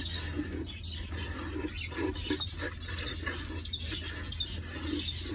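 A hand scraping and sweeping dry seed husks and feathers out of the floor of a wooden nest box: a run of quick, dry scratching and rustling.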